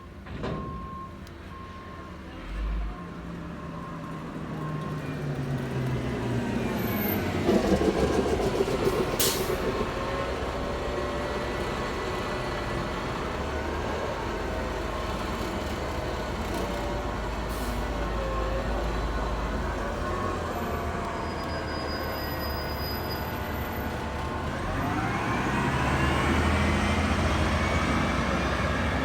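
Peterbilt 320 garbage truck's engine revving up, holding at raised revs with small rises and falls, then revving up again near the end. A backup beeper beeps during the first couple of seconds.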